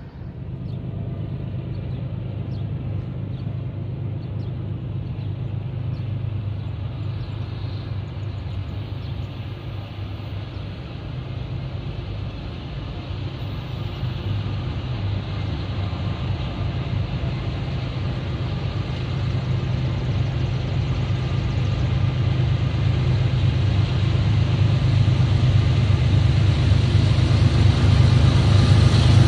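Norfolk Southern freight train's diesel locomotives approaching, a steady low engine rumble that grows louder toward the end.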